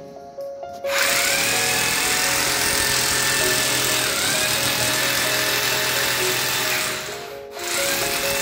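Electric hammer drill boring into a concrete ceiling: a loud, dense grinding drill noise starting about a second in. It wavers in pitch as the load changes, stops briefly near the end and starts again.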